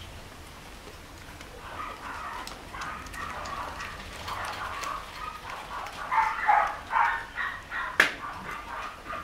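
Thirteen-day-old Shih Tzu puppies squeaking and whimpering while they nurse: many short, high squeaks, growing louder about six seconds in. A single sharp click near the end.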